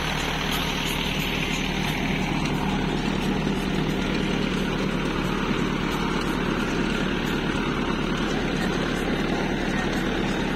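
Tractor engine running steadily while pulling a working garlic planter.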